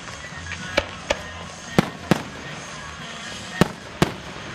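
Fireworks going off: about six sharp bangs at uneven intervals, some in close pairs.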